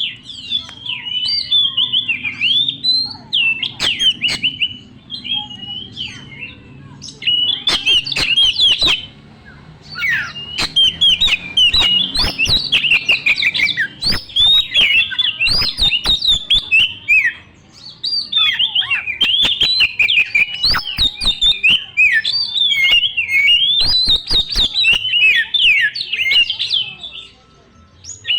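Oriental magpie-robin (kacer) singing loudly in a fast, continuous stream of varied whistled phrases and sharp chips and clicks, with short breaks about a third and two-thirds of the way through.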